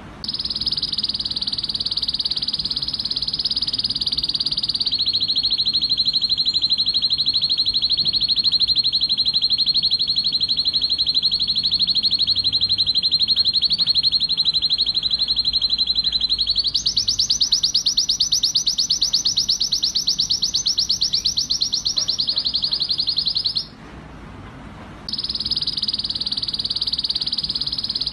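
Male domestic canary singing an excited song of long, rapid, high trills, each held for several seconds. The trill steps a little lower about five seconds in, then shifts to a higher trill with more distinct pulses about seventeen seconds in. The song breaks off briefly near the end, then resumes.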